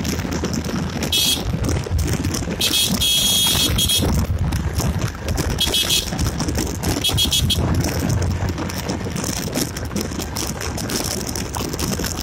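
Yamaha Gladiator's 125 cc single-cylinder four-stroke engine running while the motorcycle rides along, with heavy wind rush and road noise. Four short high-pitched bursts stand out: about one, three, six and seven seconds in, the second lasting over a second.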